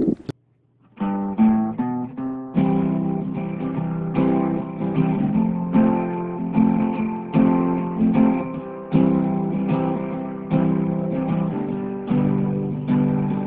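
Background music: strummed acoustic guitar, starting about a second in after a brief silence.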